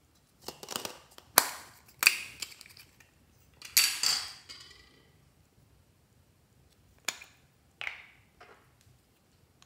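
Small hard plastic capsules and toy cases being handled and clicked open: a short rustle, then sharp plastic clicks and snaps, loudest in a cluster about four seconds in, with a few lighter clicks near the end.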